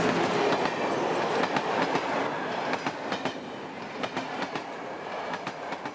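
Passenger train passing at speed: a steady rush of rail noise with the wheels clicking over the rail joints, loudest at the start and easing off a little toward the end.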